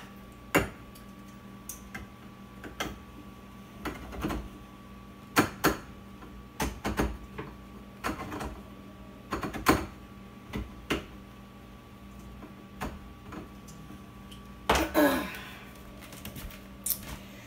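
Manual can opener clicking and knocking irregularly as it is worked around a small can of tomato sauce, a poor opener that struggles to cut the lid. A short louder burst comes near the end.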